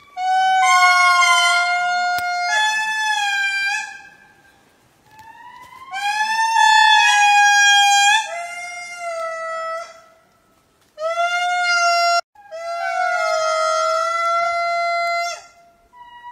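Lemur giving a series of long, steady-pitched calls, each held for one to three seconds with short pauses between them, some dropping slightly in pitch at the end.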